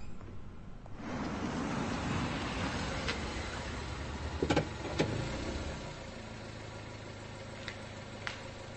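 A car drives up and comes to a stop, its engine and tyres running steadily, with two sharp knocks about halfway through; the engine then settles to a lower steady hum.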